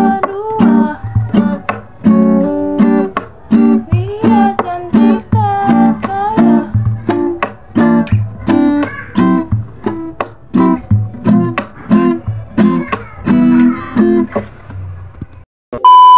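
Acoustic guitar being played, strummed chords struck in a steady rhythm. Near the end the playing cuts off, and after a brief gap a loud, steady, high test-tone beep sounds, of the kind played over TV colour bars.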